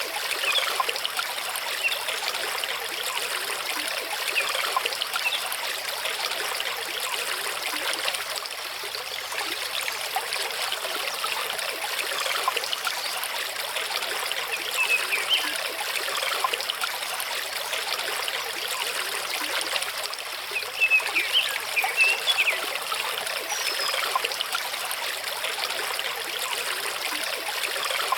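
Mountain stream running over rocks: a steady babble of flowing water, with small splashes and trickles rising out of it now and then.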